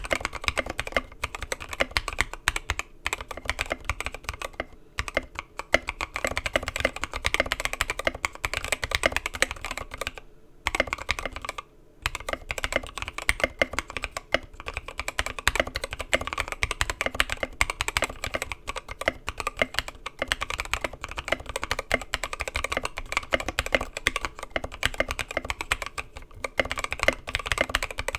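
Fast, continuous typing on a custom 65% mechanical keyboard with an aluminum plate and Gateron Milky Yellow linear switches, lubed with 205g0 and filmed. Briefly pauses twice near the middle.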